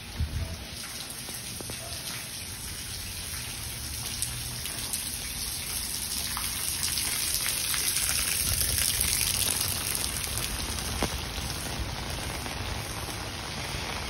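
Steady rain pattering, a dense hiss of fine drop ticks that swells towards the middle and eases off a little after about ten seconds.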